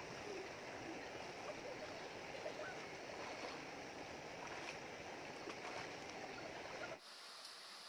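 Shallow river running over rocks, a steady rush of water. Near the end it changes abruptly to a quieter, thinner hiss.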